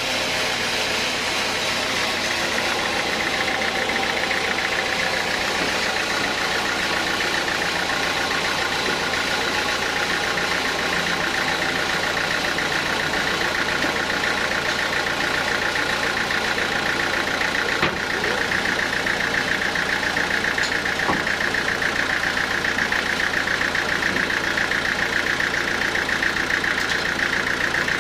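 Band sawmill running steadily with no cut under way: a constant mechanical drone with a high, even whirr from the running saw. One sharp knock about two-thirds of the way through.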